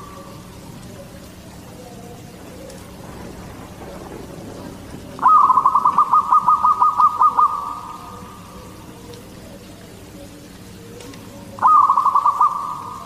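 Zebra dove (perkutut) cooing: a fast run of short repeated coo notes about five seconds in, lasting some two seconds, and a shorter run near the end.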